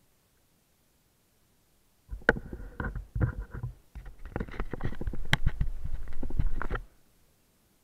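Muffled knocking and rubbing close to the camera, with a low rumble and a few sharp clicks, lasting about five seconds from two seconds in and then stopping abruptly.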